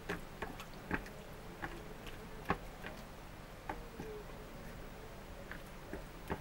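A hand kneading sliced raw beef in a sticky marinade of egg and starch on a ceramic plate. It makes faint, irregular wet clicks and squelches, one or two a second.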